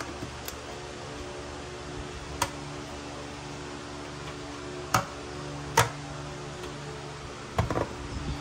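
A few sharp clicks or knocks over a steady hum: single ones about two and a half, five and six seconds in, then a quick cluster near the end.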